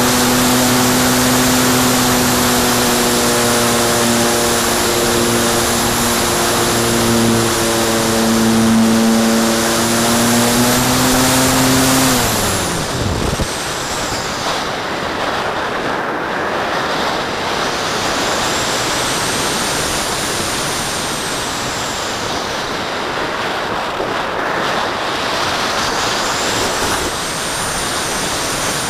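Electric motor and propeller of a Graupner Cherry II glider running with a steady hum, then switched off about twelve seconds in, the pitch falling as it spins down. After that, wind rushes past the wing-mounted camera as the glider glides, with a faint high whistle that swells and fades.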